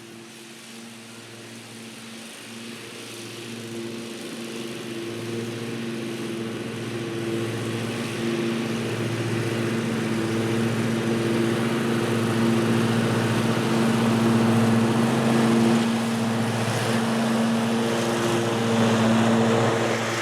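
John Deere D140 lawn tractor running steadily while mowing and collecting grass through its rear bagger, the engine hum growing steadily louder through the first half and then holding.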